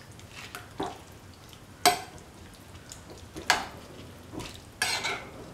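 A spoon stirring prawns and spices in a cooking pot, scraping against the pot in four short strokes spaced about a second or more apart.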